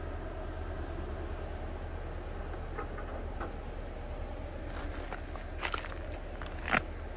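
Steady drone of distant machinery engines, from building work and tree-thinning in the valley. Over the last couple of seconds, a few footsteps crunch on a dirt path.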